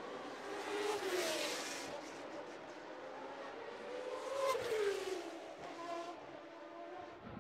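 Car engine sweeping past twice, about a second in and again around four and a half seconds in, its pitch rising and then falling with each pass over a hiss of road and air noise.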